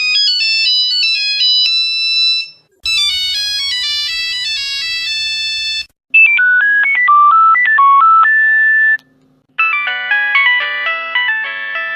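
A run of Nokia mobile phone ringtones played one after another. Each is a short melody of clear electronic notes that stops after about three seconds and gives way to the next, four tones in all. The later ones have a low accompaniment under the tune.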